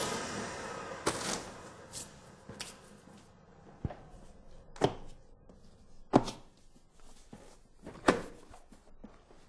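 Nilfisk Attix 12 vacuum motor winding down after being switched off, fading out over the first second or two. It is followed by about seven separate, irregularly spaced knocks and clicks, the sharpest a little under five and about six seconds in.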